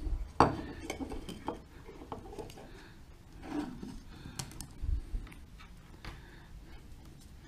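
A rechargeable battery pack is slid into a clear plastic battery pod and handled, making scattered small plastic clicks and knocks. The sharpest click comes about half a second in, and a dull knock comes near five seconds in.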